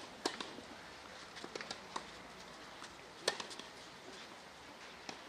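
Tennis ball struck by rackets in a rally: a few sharp pops spaced a second or more apart, the loudest a little past three seconds in.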